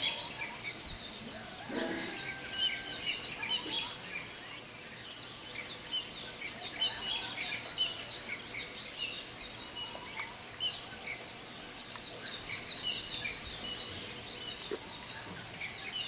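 A chorus of many birds calling at once: a dense, unbroken run of quick high chirps with scattered lower notes among them.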